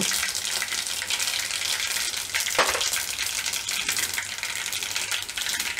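Mustard and cumin seeds sizzling in hot oil for a tempering (vaghar): a steady hiss full of small crackling pops, with one louder click about two and a half seconds in.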